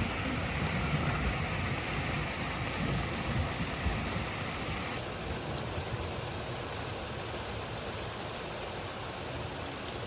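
Very heavy rain pouring down as a steady hiss during a thunderstorm, with a low rumble underneath in the first half; it gets a little quieter about halfway through.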